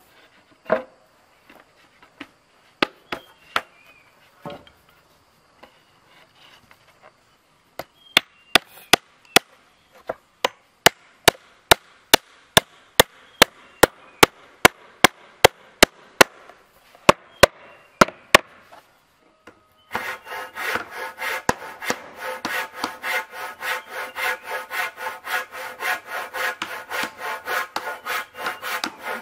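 A few scattered wooden knocks, then a hammer driving nails into wooden boards with sharp, even strikes about twice a second. About two-thirds of the way in, a handsaw starts cutting through a wooden plank in quick, steady strokes, louder than the hammering.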